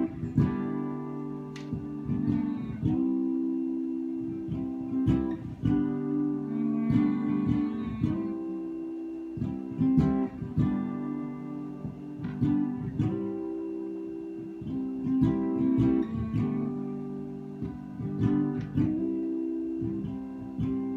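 Acoustic guitar playing an instrumental passage: plucked and strummed chords that ring on between attacks, with no singing.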